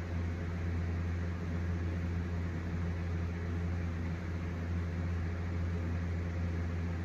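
Steady low electrical hum with an even hiss underneath, as from a running fan or similar motor-driven appliance.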